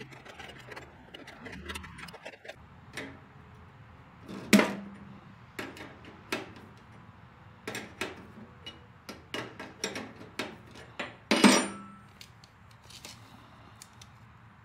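Hand tools clicking and knocking on the mower deck's metal adjustment hardware as the deck-leveling adjusters are turned, with two loud metallic clanks that ring briefly, one about four and a half seconds in and one near eleven and a half seconds.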